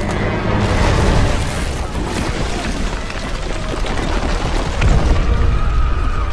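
Deep, rumbling boom of a blast with debris, swelling about a second in and again near five seconds, over film music.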